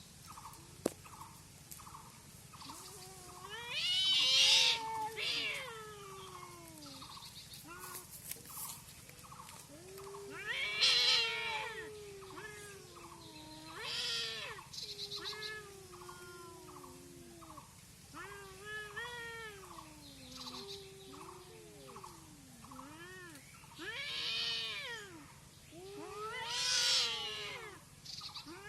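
Domestic cats yowling and caterwauling in a fight: drawn-out wailing cries that rise and fall in pitch, several of them building to loud screeches. A faint regular pulsing runs beneath them, about two pulses a second.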